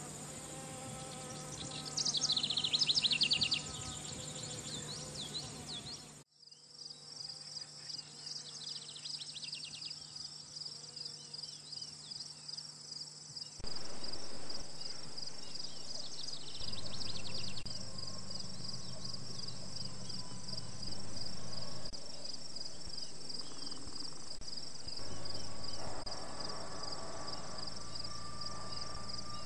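Summer woodland ambience: a steady, fast-pulsing chorus of insects such as crickets or katydids, with a bird singing short phrases a few times.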